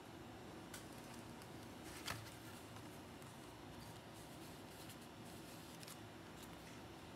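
Faint rustling and handling of leather pieces on a cutting mat, with a light tap about two seconds in.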